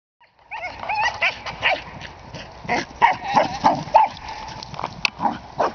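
Dog barking and yipping in quick, irregular bursts, the excited barks of a dog playing chase.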